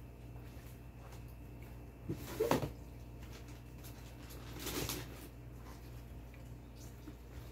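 Gloved hands working seasoned napa cabbage leaves in a plastic tub during kimchi making: two short wet handling noises, the louder about two and a half seconds in and a softer one near five seconds, over a steady low hum.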